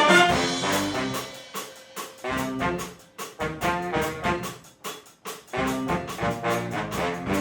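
Jazz-funk big band playing live. A full brass section chord rings out and fades over the first second, then the horns play short, punchy stabs in rhythm, with drum kit hits between them.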